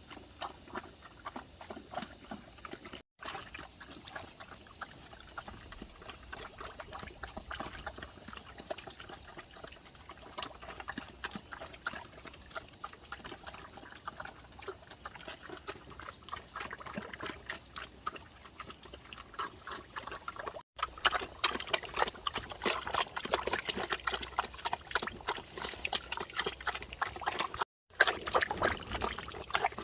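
Farm animals eating wet feed: dense smacking, slurping and crunching that grows louder after about 21 s in, over a steady high buzz of insects.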